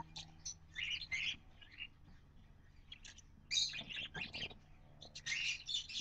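Baby cockatiels and budgies begging in the nest box: short bursts of shrill, raspy chirping about a second in, again around four seconds, and near the end.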